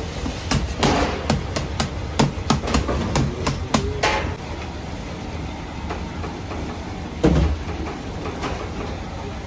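Plastic dough scraper knocking on a stainless steel worktable as dough is cut into portions, in quick sharp taps, three or four a second, that stop about four seconds in. Later a single loud thump, over a steady low hum.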